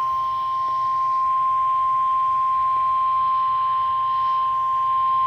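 NOAA Weather Radio's 1050 Hz warning alarm tone: a single loud, steady beep held without a break, the signal that a warning is about to be read.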